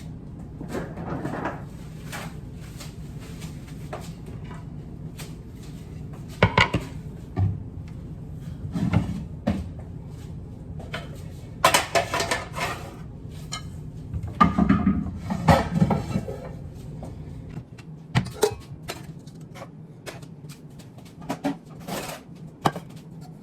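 Pots and pans being taken out and set down, with cupboard doors opening and closing: a run of irregular knocks and clatters over a steady low hum that stops about three-quarters of the way through.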